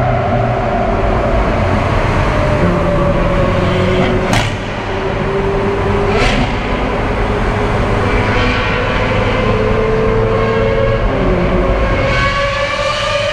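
Ferrari 458 Spider's V8 engine running at highway speed over steady road and wind noise, with two sharp cracks a little under two seconds apart; near the end its note climbs as it accelerates.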